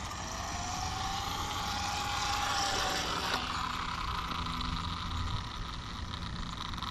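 ARRMA Limitless RC car's brushless motor and drivetrain whining as the car is driven slowly on asphalt. The whine rises a little in pitch over the first three seconds, then switches to a higher whine that fades slowly.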